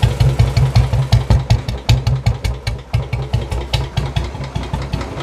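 Royal Enfield motorcycle engine idling with a steady, even beat and no tick-tick noise: the ticking fault has been cured.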